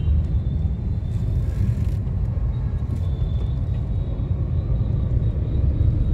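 Steady low rumble of a moving car, heard from inside the cabin: engine and road noise.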